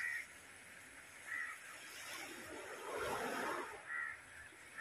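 A crow cawing, three short calls a second or more apart. Around the middle comes a louder splashing slosh of water lasting about a second and a half, as someone wades and handles a net in shallow seawater.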